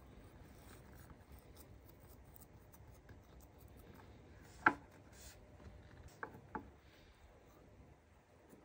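Fingers pressing and smearing soft clay-soil mix onto the inside of a small glass tumbler: faint rubbing and scratching. One sharp tap about halfway through, then two lighter taps a moment later.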